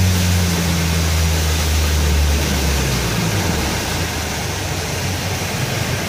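Boat engine throttling back, its drone falling in pitch and fading as the boat slows from about 22 to 6 mph, leaving a steady rush of wind and water noise.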